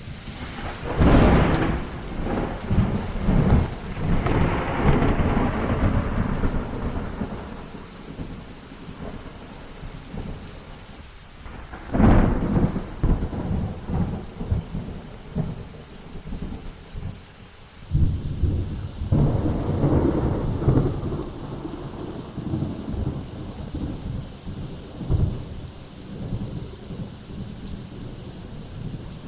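Thunderstorm: three thunderclaps, about a second in, near the middle and about two-thirds through, each starting with a sharp crack and rolling off into several seconds of low rumbling, over steady rain.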